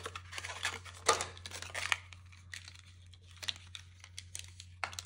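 Packaging crinkling and rustling as it is handled, in short bursts about one and two seconds in, then a few light ticks and taps, over a steady low hum.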